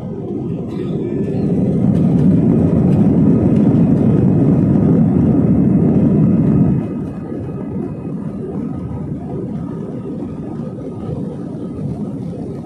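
Jet airliner engines and rolling noise heard from inside the passenger cabin during the takeoff roll on a wet runway. A low, loud noise swells a second or two in, then drops abruptly about halfway through to a steadier, quieter level, with a faint steady whine above it.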